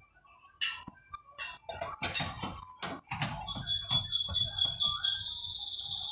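A few sharp clinks and knocks of kitchen utensils against pans and dishes. From about three and a half seconds in, a high trill of quickly repeated rising notes, which settles into a steady high warble near the end.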